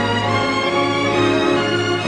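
Background music with bowed strings: held violin and orchestral notes.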